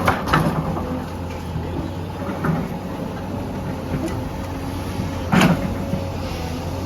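SANY SY210C-9 excavator running steadily, with a few metallic clanks near the start and one loud clank about five and a half seconds in.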